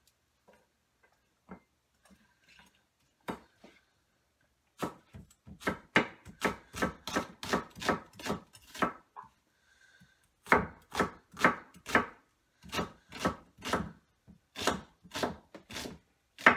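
Chef's knife fine-chopping onion on a wooden butcher-block board: after a few scattered light knocks, a fast run of knife strikes on the wood, about three a second, broken by a short pause near the middle.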